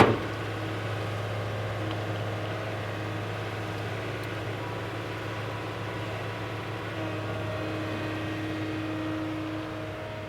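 Steady mechanical hum of an excavator's motor running, with several steady tones over a low drone. There is one sharp knock at the very start.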